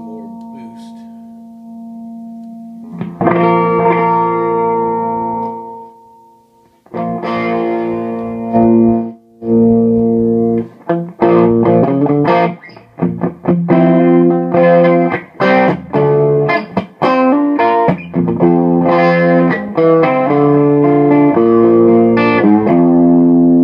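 Electric guitar played through a Mesa/Boogie DC-5 tube amp's clean channel with its pull-out switch engaged, giving a crunchy overdriven tone. A held chord rings out and fades, a strummed chord follows, then after a short break a run of chords and short choppy stabs, ending on a held chord.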